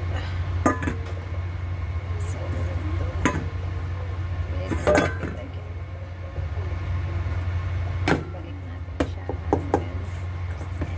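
Hands handling bread dough on a wooden board, with a stainless steel bowl set down and the dough put into it. There are scattered sharp knocks and taps, a few close together near the end, over a steady low hum.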